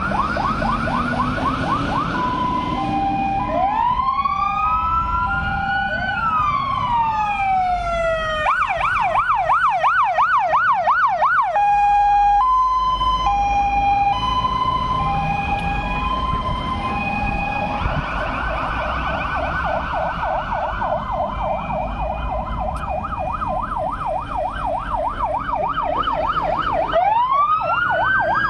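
Sirens of several fire engines pulling out in a convoy, overlapping and changing as each truck passes. There are fast yelping sweeps at about three to four a second, slow rising and falling wails, and a two-tone high-low pattern, all over the sound of the trucks' engines running.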